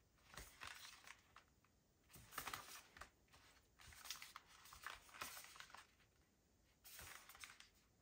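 A small cardboard retail box being handled and turned over in the hands: faint rustling and scraping of fingers sliding on the box in several short bursts.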